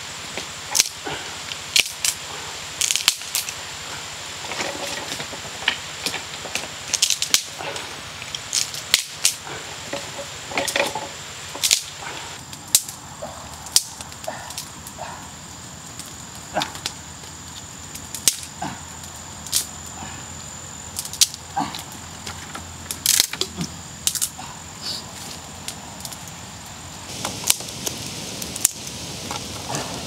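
Dry wood snapping and crackling in irregular sharp pops, with a steady high-pitched insect drone that stops near the end.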